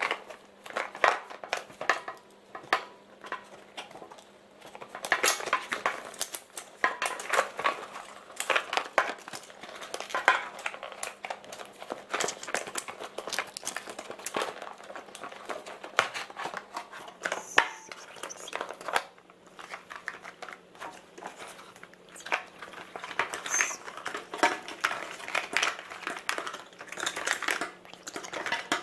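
Packaging being handled by hand while unboxing an action camera: crinkling plastic with many irregular clicks and light knocks, and a faint steady hum underneath.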